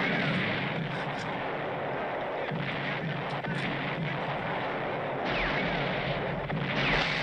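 War-film battle sound effects: a continuous artillery barrage, with whistles of incoming shells falling in pitch near the start and again near the end.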